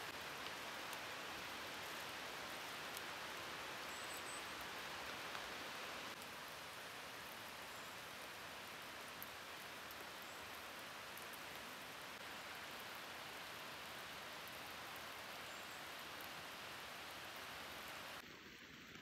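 Light rain falling on forest foliage: a soft, steady hiss with scattered faint drop ticks. The level steps down slightly about six seconds in and again near the end.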